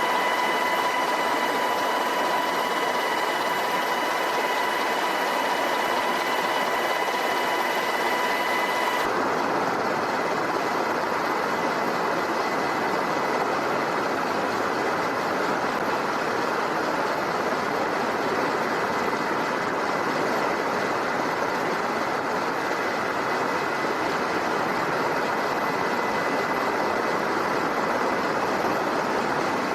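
MH-60S Seahawk helicopter running: steady turbine and rotor noise with a high whine, which changes abruptly about nine seconds in as the shot changes.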